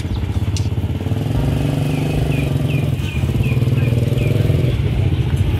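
Small motorcycle engine running close by with a steady low pulsing note. A row of short high chirps, about three a second, comes in the middle.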